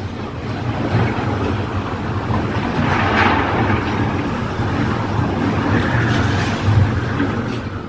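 Hurricane-force wind gusts rushing and buffeting the microphone as a steady noise, swelling about three seconds in and again near six seconds.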